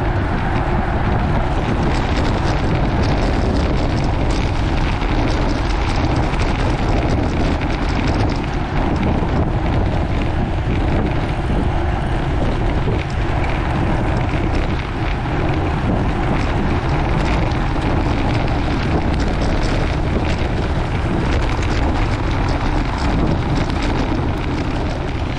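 Wind buffeting the microphone of a camera on a bicycle ridden at road-race speed: a loud, steady rush, heaviest in the low end, mixed with tyre noise on the road.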